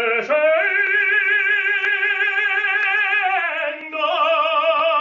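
Closing music: a solo operatic voice sings long held notes with a wide vibrato. It steps up in pitch right at the start and slides down to a lower held note about three and a half seconds in.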